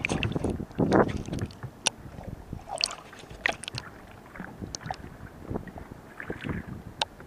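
Water splashing and sloshing at a kayak's side as a fish is let go into the sea, loudest about a second in, followed by scattered small splashes and sharp clicks against the hull.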